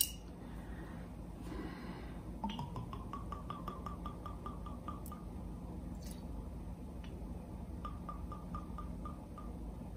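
Grand Marnier liqueur trickling from its glass bottle into a steel measuring spoon, a thin gurgle that rises in pitch and then runs with quick regular drips. There are two pours, the second shorter.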